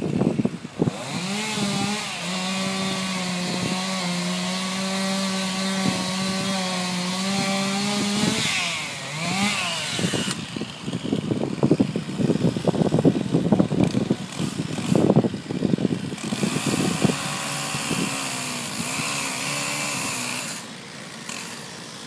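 Gasoline chainsaw cutting through a felled tree trunk. The engine is held at a steady high speed for about seven seconds, revs down and up, runs unevenly for several seconds, then holds high again for another cut that ends about a second before the end.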